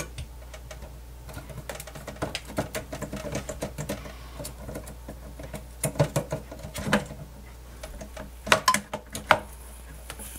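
Clicks, knocks and rattles of a cassette deck's aluminium front panel and its plastic mounting tabs as the panel is worked and levered loose from the chassis by hand. A run of small quick clicks comes about two seconds in, then sharper knocks, and the loudest few come near the end.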